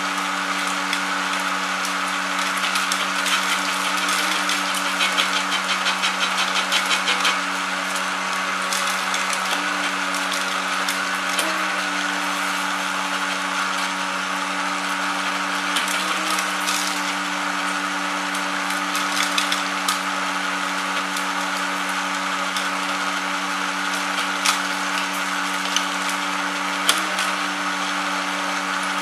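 Small motor of a homemade seed-husking machine running with a steady hum. A dense rattling comes a few seconds in, and a few sharp clicks follow later.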